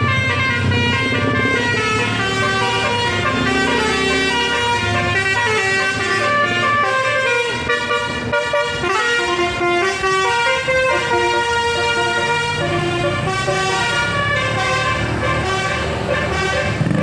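Bus telolet 'basuri' multi-tone horn playing a quick stepping melody over the bus engine's low rumble. The horn drops back briefly about eight seconds in.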